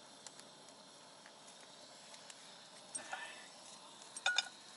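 Metal clinks of a frying pan being set onto a small canister camp stove: a short scrape-and-clink about three seconds in and a brighter ringing double clink just past four seconds, over faint outdoor background with a few light ticks.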